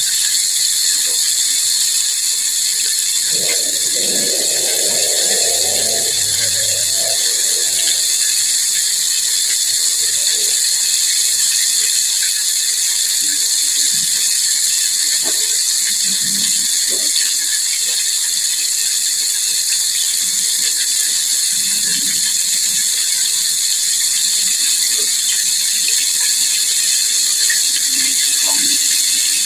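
Hot oil sizzling steadily around a whole breaded chicken deep-frying in a pot.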